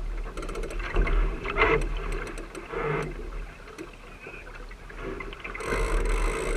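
Sailing dinghy under way: water splashing along the hull, with wind noise on the microphone. A run of quick clicks comes about half a second in, and the rush of water and wind grows louder near the end.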